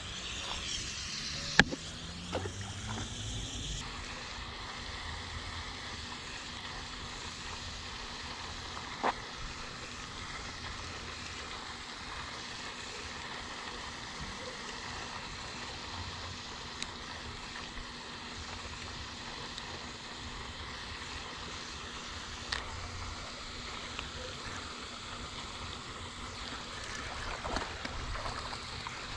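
Steady splashing hiss of a pond's aerating fountain, with a few sharp clicks, the loudest about one and a half seconds in.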